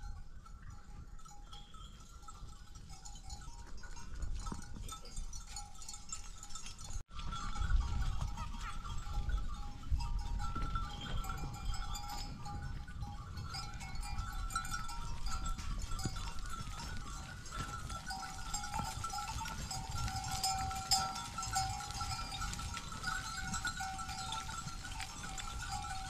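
A grazing sheep flock with its bells ringing steadily and an occasional bleat, over a low rumble. The sound grows louder after a brief dropout about seven seconds in.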